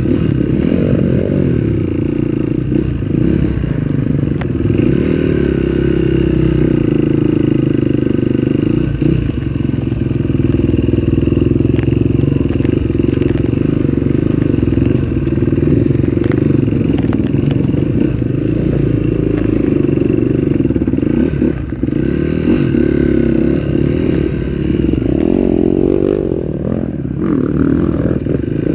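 Off-road trail motorcycle engine running continuously as it is ridden, its pitch wavering a little with the throttle, with a brief drop in level about two-thirds of the way through.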